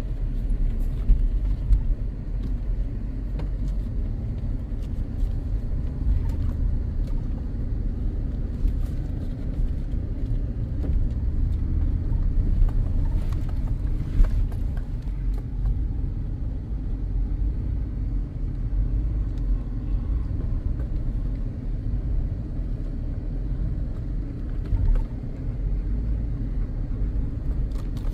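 Off-road vehicle crawling slowly over a rough, washed-out dirt trail: a steady low engine and drivetrain rumble, with a few brief knocks and rattles from the body and suspension working over the ruts.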